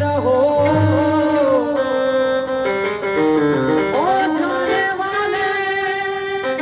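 Music: a song whose melody line bends and slides between notes over instrumental backing.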